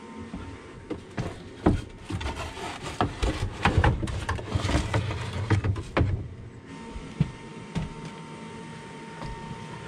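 A wooden pallet knocking, bumping and scraping as it is handled: a run of irregular wooden thuds and knocks, busiest from about one to six seconds in, then a few scattered knocks.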